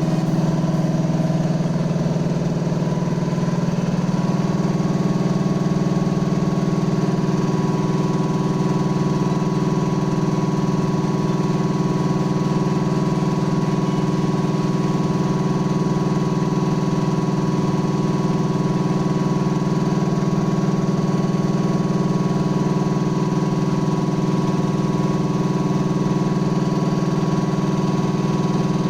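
NK three-piston electric air compressor running steadily under load, with a low hum and a steady whine above it, pumping up air pressure toward its cut-off. Its pitch shifts slightly in the first few seconds, then holds steady.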